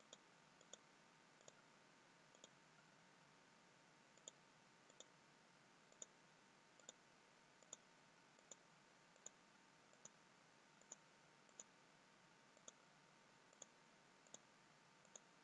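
Computer mouse button clicking faintly, about once a second, some clicks coming in close pairs, over a low steady hiss.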